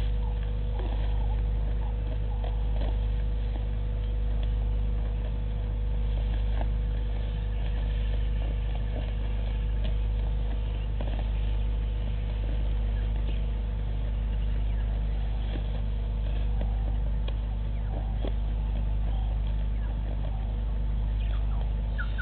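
A steady low hum, swelling and easing slightly every couple of seconds, with faint scattered clicks and chirps over it.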